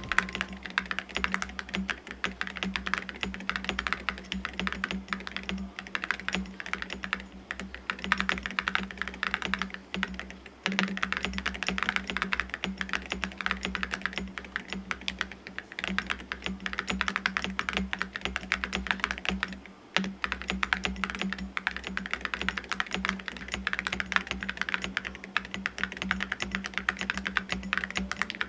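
Continuous typing on a mechanical keyboard fitted with Awekeys full-metal keycaps, a dense stream of thocky keystrokes with brief pauses about ten and twenty seconds in.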